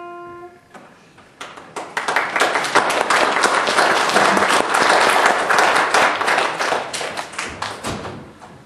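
The last piano chord rings out and dies away, then an audience applauds, building quickly and tapering off near the end.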